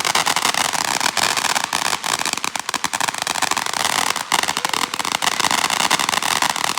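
Fireworks crackling continuously: a dense stream of rapid small pops and sizzling.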